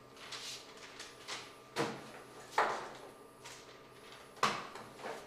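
Rummaging through a wooden box: a series of short knocks and rustles as objects and papers are handled, the loudest about two, two and a half and four and a half seconds in.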